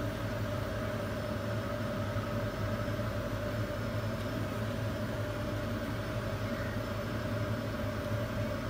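A steady mechanical hum with an even hiss over it and no crackle or clatter.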